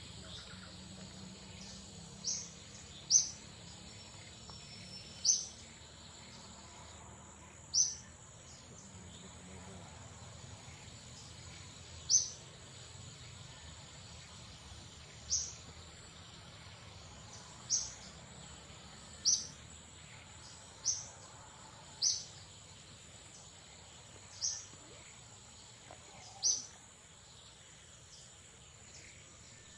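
A bird repeating a short, sharp, high call that slides downward, about a dozen times at irregular gaps of one to four seconds. Under the calls runs a steady high-pitched insect drone.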